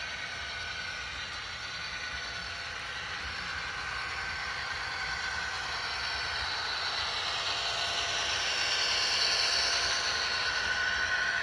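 Model diesel locomotives running on track, a steady mechanical whir with thin whining tones that slowly grows louder, one whine gliding up and back down near the end.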